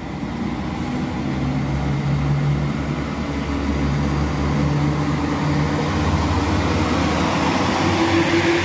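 Northern Ireland Railways Class 3000 diesel multiple unit pulling away from the platform, its underfloor diesel engines running under load with a steady hum. It grows louder as the train gathers speed past the listener.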